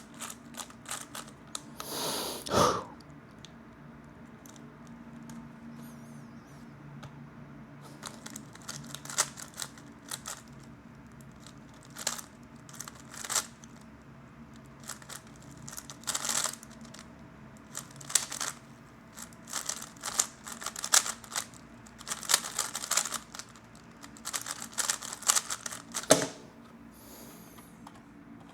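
3x3 Rubik's-type speedcube being turned fast: clusters of plastic clicks and clacks as the layers snap round, with short pauses between bursts. A louder rustle or knock comes about two seconds in.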